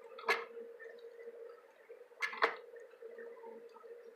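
Sausage stuffing at work: a steady hum with two sharp clacks, one just after the start and a quick double clack about two seconds later.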